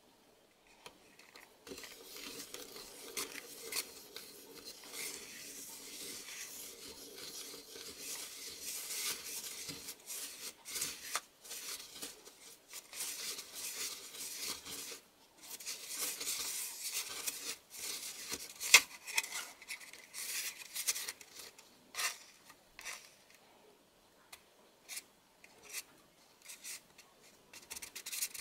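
Gritty scraping and rubbing as candy-kit powder is mixed into liquid in a thin plastic tray, with a wooden stick and fingers, while the mixture turns into crumbly clumps. Over the last few seconds the steady scraping gives way to scattered short clicks and crackles as the clumps are picked and pressed.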